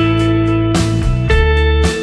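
Background music: guitar-led instrumental, notes changing about every half second over a steady bass.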